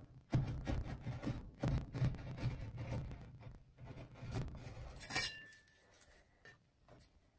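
Metal spatula scraping across a frozen stainless-steel ice-cream plate, pushing under a sheet of frozen ice cream to roll it up, in a run of rough, uneven scraping strokes. About five seconds in comes one sharp metallic clink with a short ringing tone, and the scraping then goes quieter.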